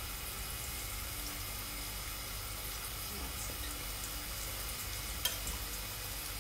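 Four breadcrumbed fish pieces frying in hot oil in a deep pan, a steady sizzle, the oil hot enough for crumbed fish. A single sharp click about five seconds in.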